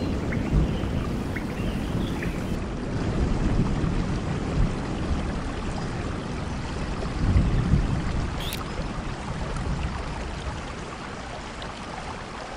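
Steady rainfall: an even hiss with a heavy low rumble, easing slightly toward the end.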